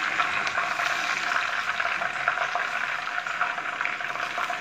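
Cooking oil sizzling in a non-stick frying pan where a whole chicken has been fried, a steady hiss full of fine crackles.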